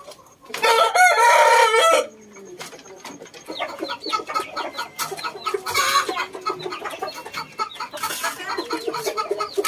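A shamo gamefowl rooster crows once, loudly, about half a second in, the crow lasting about a second and a half. Then chickens keep clucking in a quick run of many short calls.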